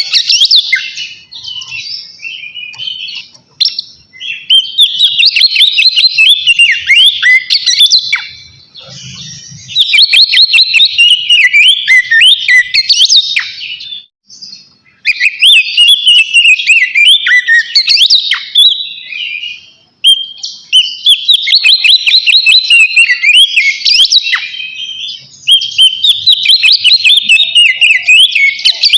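Oriental magpie-robin (kacer) singing loudly in long, varied phrases of quick sliding whistles and trills, broken every few seconds by short pauses. This is its full, open 'ngeplong' song, a song that calls out a rival.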